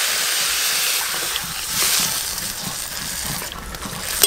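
Water poured from a clay jug into a hot steel wok of fried potatoes, eggplant and gourd greens, sizzling loudly as it hits the hot oil; the hiss dies down near the end. A sharp metal clink of a spatula on the wok right at the end.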